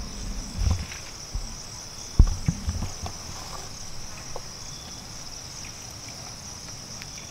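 Steady high-pitched drone of an insect chorus. A few dull low thumps come about a second in and again between two and three seconds in.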